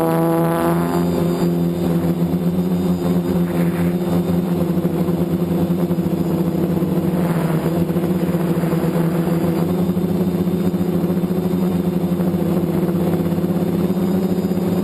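FPV multirotor drone's electric motors and propellers buzzing steadily at a nearly constant pitch under constant throttle.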